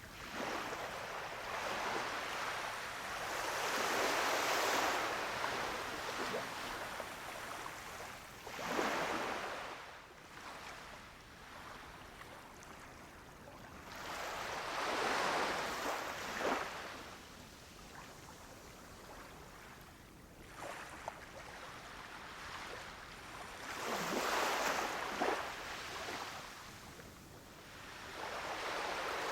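Gentle sea waves breaking on a beach shore: a wash of surf swells up every six to nine seconds, four times, and falls back to a softer hiss of receding water between breaks.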